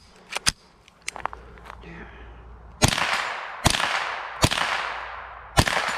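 A few sharp clicks as the .22 rifle's action is worked to clear a malfunction, then four .22 rifle shots a little under a second apart, each with a long echo fading through the trees.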